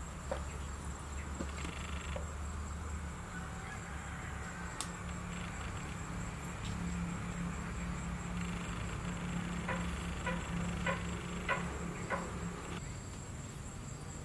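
Steady background ambience: a thin, high, insect-like whine over a low hum. Starting about ten seconds in there is a row of about six light clicks, roughly two a second.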